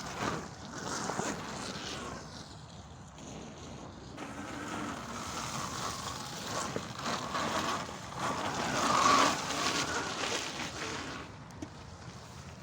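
Wind buffeting the microphone and rough riding noise from an electric mid-drive pit bike ridden off-road, rising and falling, loudest about nine seconds in.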